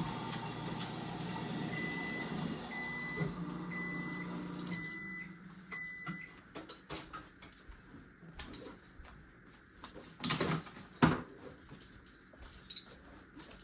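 A steady hum with five short electronic beeps about a second apart, the last ones longer. The hum stops after the beeps, then come a few knocks and one loud thud about eleven seconds in.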